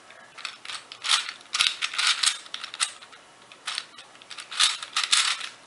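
Plastic Gear Ball twisty puzzle being turned by hand: quick runs of clicking and clacking as its geared layers turn, in bursts with short pauses between them.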